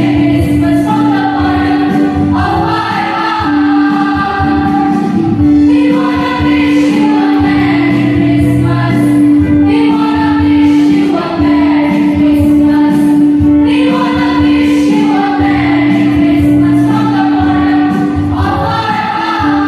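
Mixed school choir singing a Christmas carol, accompanied by an electronic keyboard holding a steady note beneath the voices.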